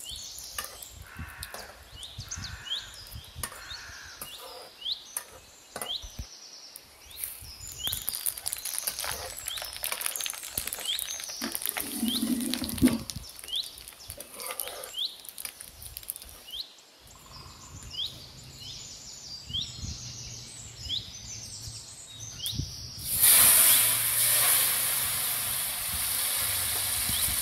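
Dried red chillies and bay leaves sizzling in hot oil in an iron kadai, with the clicks and scrapes of a metal ladle stirring them, while a bird calls over and over. About three-quarters of the way through, chopped mixed vegetables go into the hot oil with a sudden loud sizzle that settles into a steady hiss.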